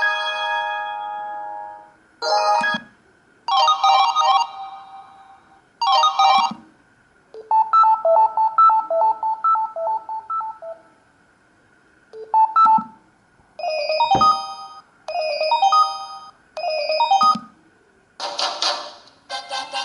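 Samsung SGH-D780 mobile phone playing its stock ringtones: a string of short electronic melody phrases broken by brief pauses.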